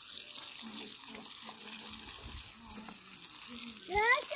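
Water spraying from a garden hose onto dry dirt ground, a steady hiss. Near the end a short high call of two rising notes cuts in, louder than the spray.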